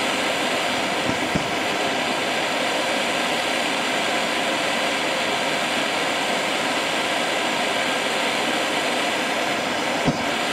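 Steady hissing roar of a propane torch heating a homemade waste-oil gasifier, with a couple of faint knocks about a second in. Near the end a short pop as the gas at the burner holes catches fire.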